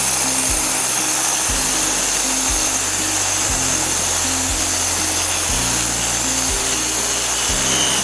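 Large DeWalt angle grinder driving a diamond core bit through floor tile: a steady grinding hiss, strongest in the high pitches. Background music with a steady beat plays underneath.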